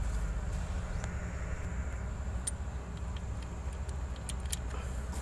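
Light metallic clicks and taps as a fuel cut-off is worked by hand into the rack of a diesel fuel injection pump, a few of them in the second half, over a steady low background rumble.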